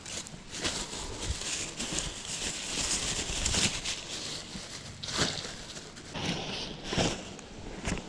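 Thin black plastic bag crinkling and rustling as it is handled, twisted and tied in a knot, with sharp crackles as the plastic is pulled tight.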